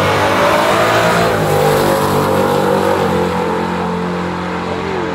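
Two drag-racing cars accelerating hard off the line at full throttle and pulling away down the strip. Their engine notes shift up in steps about a second and a half and three seconds in, then hold and slowly fade as the cars get farther off.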